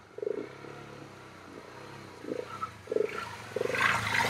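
Off-road motorcycle engine revving in short bursts as the throttle is worked on a trail, rising and falling in pitch several times, loudest near the end.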